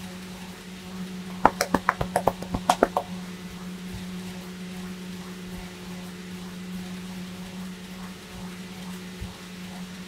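A barber's hands tapping rapidly on a customer's head during a massage: a quick run of about a dozen sharp slaps in roughly a second and a half, starting about a second and a half in. A steady low electrical hum runs underneath.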